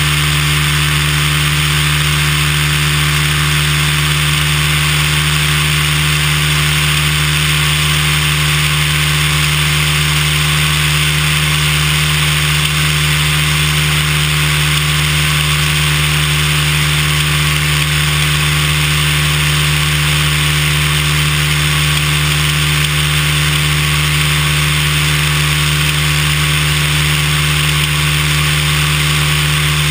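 Cessna 172's piston engine and propeller running at a steady, unchanging power, a constant drone mixed with a rush of airflow.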